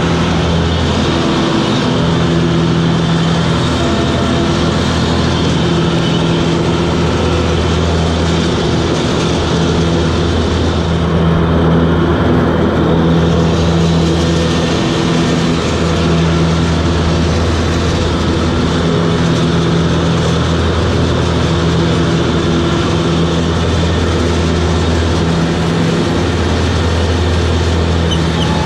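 Toro Groundsmaster 7210 zero-turn mower running steadily, its diesel engine and 62-inch rotary deck going together, with the engine note wavering slightly. The higher hiss dies down briefly about halfway through, then returns.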